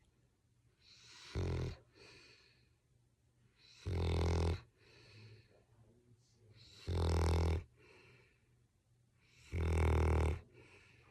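English springer spaniel snoring loudly in its sleep: four snores about every three seconds, each under a second long, with quieter breaths out between them.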